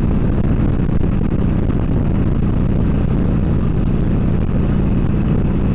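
Harley-Davidson Sportster 1200 Seventy-Two's V-twin engine running steadily at highway speed, under heavy wind rush on the microphone.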